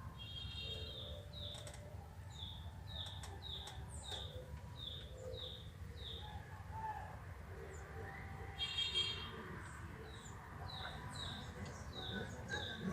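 A bird chirping over and over in short, falling chirps, about two a second, with a brief buzzy trill near the start and another about two-thirds of the way through. Steady low background noise runs underneath.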